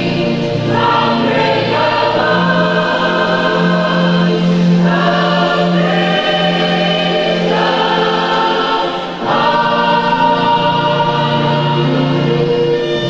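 Mixed church choir singing held chords in parts. The sound dips briefly about nine seconds in at a break between phrases, then the full choir comes back in.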